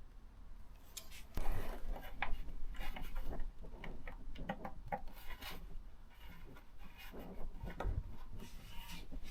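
Hands working on a motorcycle fairing mount: irregular clicks, light knocks and rubbing of parts and fixings. It starts about a second and a half in.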